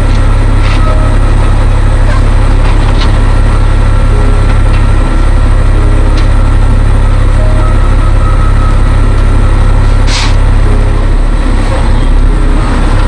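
Heavy truck's diesel engine running steadily as a loud, low rumble, with a few sharp clicks, the clearest about ten seconds in.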